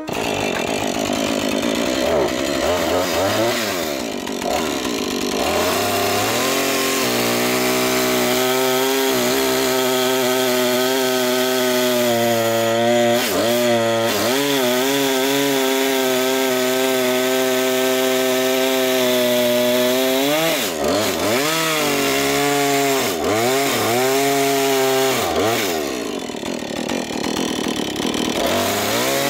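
Two-stroke chainsaw running at full throttle, bucking a birch log into firewood lengths. The engine note holds steady through long cuts and dips and climbs again several times, as the throttle eases between cuts.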